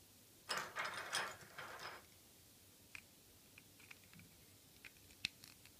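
Hard plastic parts of a Seacon Transformers toy being handled as small guns are pushed into the figure's hands. A short plastic clatter lasts about a second and a half, then come scattered small clicks, the sharpest near the end.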